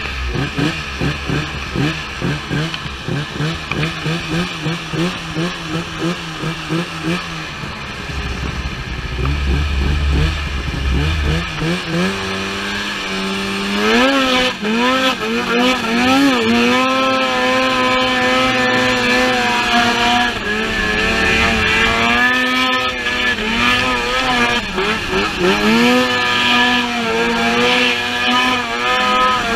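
Snowmobile engine running at low revs with a rhythmic pulse, then revving up about twelve seconds in and held high, the pitch rising and dipping, as the sled skims across open river water.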